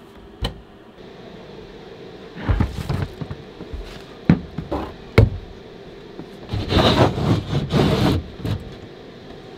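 Wooden cabinet door and removable cabinet floor panel being handled: several sharp knocks and clicks, then a longer stretch of scraping and rustling in the second half, over a steady low hum.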